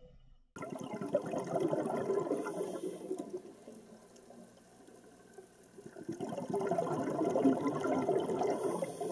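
Rushing, bubbling water sound that starts abruptly, swells, dips to a lower level in the middle, then swells again.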